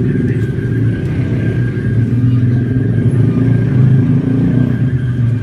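Steady, loud low engine rumble of motor traffic.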